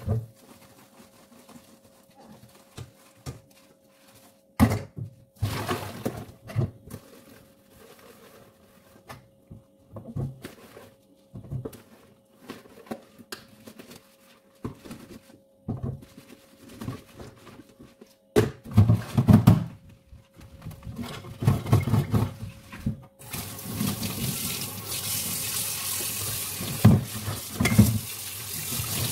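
Pots and dishes being washed in a kitchen sink: a sponge scrubbing, with intermittent knocks and clatter of metal cookware against the sink. About 23 seconds in, the tap is turned on and water runs steadily into the sink.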